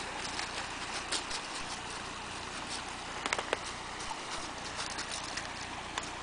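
Footsteps crunching and rustling through dry fallen leaves, with scattered sharp crackles, the loudest a quick cluster about three seconds in, over the steady rush of a shallow creek.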